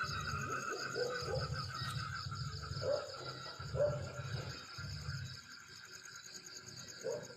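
Insects trilling in a steady, finely pulsing chorus, with repeated low buzzing stretches and short low chirps from other animals over it.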